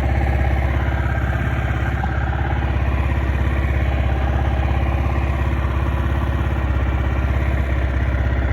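Yamaha R15's single-cylinder engine idling steadily from cold, with a faint, light 'teco-teco' ticking from the top of the engine, like a little cricket. The owner believes this cold-start tick is not normal and suspects an engine problem.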